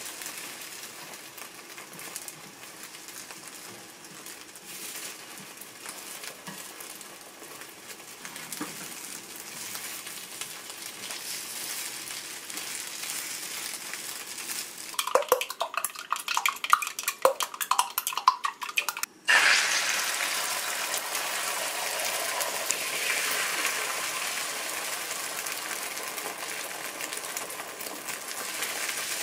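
Food sizzling as it fries in a pan, with a utensil clattering and scraping against the pan for a few seconds past the middle. Then, after a brief break, a louder, brighter sizzle.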